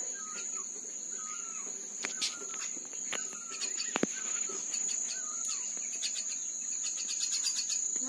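Steady high-pitched insect drone, like crickets or cicadas, with short bird chirps repeating about once a second. A few sharp clicks come around two and four seconds in.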